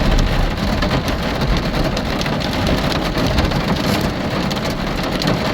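Steady heavy rain falling, with many individual drops striking sharply through it.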